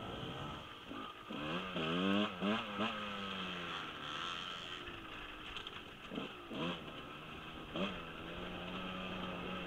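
Husqvarna 125 dirt bike engine revving in quick up-and-down throttle blips, then running steadily at low throttle. There are short blips again about six seconds in and near the end.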